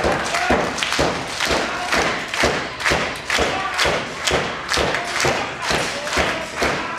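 Rhythmic pounding and clapping in time from the ringside crowd, about two beats a second, with a voice shouting between the beats.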